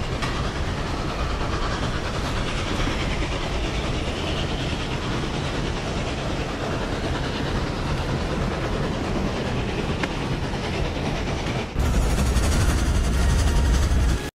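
Steam train running on the rails: a steady rush and rumble of the moving train. About twelve seconds in it cuts to a louder, deeper rumble.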